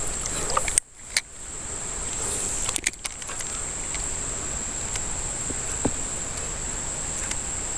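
Steady rush of a shallow mountain creek with a thin, steady high whine over it. The sound cuts out sharply for a moment about a second in, and briefly again near three seconds.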